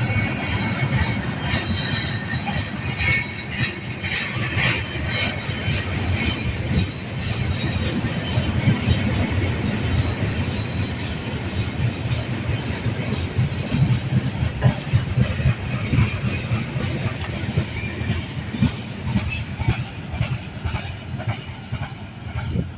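Train cars rolling past: a steady rumble and clatter of wheels on rail, with high-pitched wheel noise strongest in the first several seconds.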